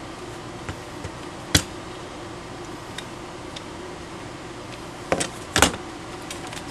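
Knocks of small kit parts being handled and set down on a hard surface: one sharp knock about one and a half seconds in, then a quick cluster of knocks near the end, over a steady low hum.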